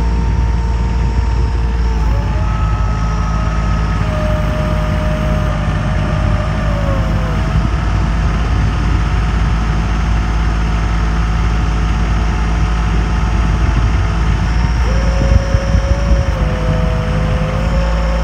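Boat motor running steadily under load while pushing a floating grass island, a deep drone with a higher whine that wavers up and down in pitch, briefly louder a few times near the end.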